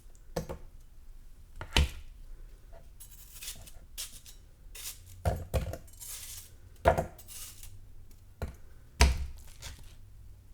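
Knife cutting through watermelon flesh: about seven sharp chops at uneven intervals, with quieter crisp slicing noises between them.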